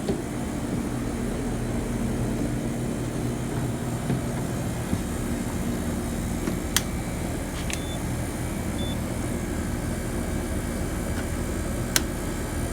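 1983 General Electric Elite heat pump running in heat mode, a steady hum from the unit, with two sharp ticks, one about halfway through and one near the end.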